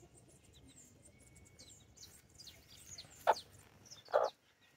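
Chicks peeping in many short, high cheeps around their broody mother hen, who gives two short, louder, lower clucks near the end, about a second apart.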